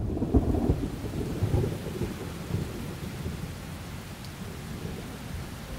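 Thunder rumbling and dying away over the first couple of seconds, over the steady hiss of heavy rain.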